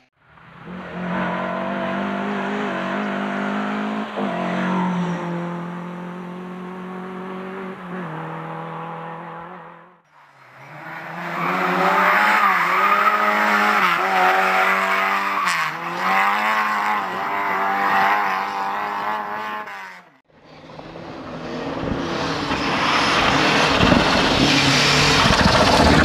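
Race-car engines running hard in three short cuts. First a steady, high-revving engine, then a Lada 2107 saloon race car revving up and down through gear changes as it passes, and last another car building up loudly with a harsher, noisier sound.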